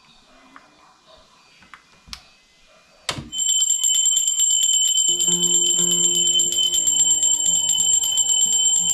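A metal bell, as in a Hindu temple, rung rapidly and continuously from about three seconds in, its strikes coming in a fast even run. About two seconds later, sustained music joins underneath.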